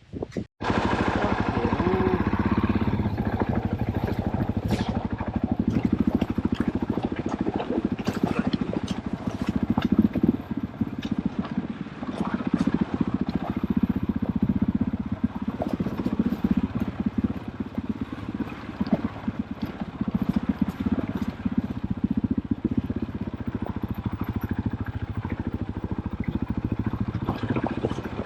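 KTM off-road motorcycle engine running steadily while riding a trail, with scattered clicks and knocks from the ride.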